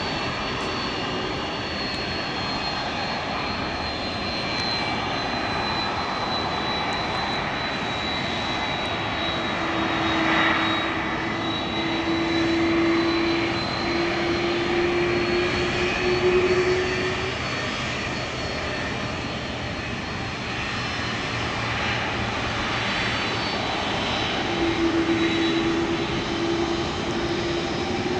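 Airbus A330-200's twin turbofan engines at taxi power: a steady jet whine and roar with a high whistling tone that drifts slightly lower. A lower steady tone comes in twice, about a third of the way through and again near the end.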